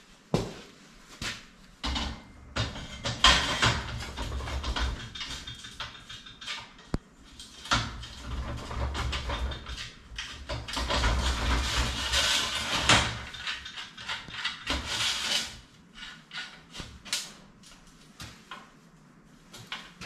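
Welded square-steel-tube frame pieces being handled and fitted together: scattered clanks and knocks, with longer stretches of noise where the metal scrapes and slides.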